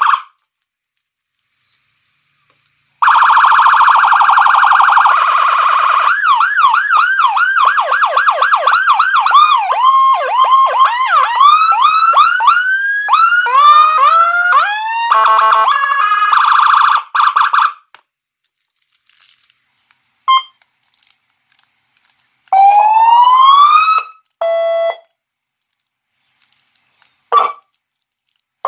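Whelen HHS electronic siren played through a Senken YD100i siren speaker, cycling through its tones. After about three seconds of silence comes a steady piercing tone, then repeated rising-and-falling sweeps that speed up, and a section of steady alternating tones. After a gap come short blips, one long rising sweep and a quick run of pulsed beeps.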